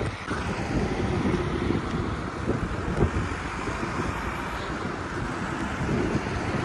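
Wind buffeting the phone's microphone, an uneven low rumble, with street traffic running underneath.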